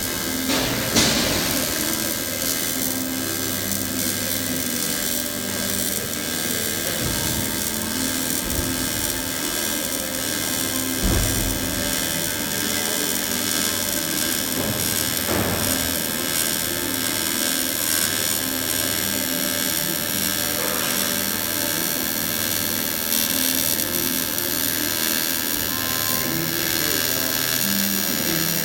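AC TIG welding arc on aluminium, running steadily, with a few short sharp clicks.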